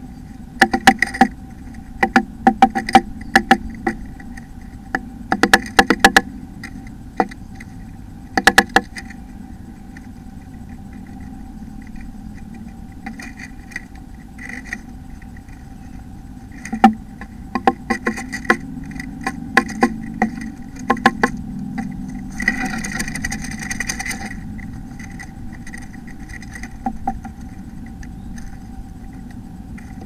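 Blue tit moving about inside a wooden nest box, working the moss and grass of its nest: bursts of sharp clicks and scratches, with a longer rustle about three-quarters of the way through. A steady faint hum runs underneath.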